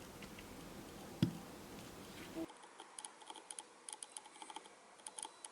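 Small hand-work sounds while fitting a dial to an NH35 automatic watch movement: one sharp knock about a second in, then a run of small quick irregular clicks.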